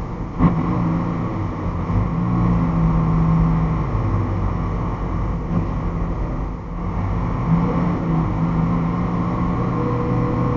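Semi truck's diesel engine running at low speed, heard from inside the cab as a steady low drone, with a single sharp knock about half a second in.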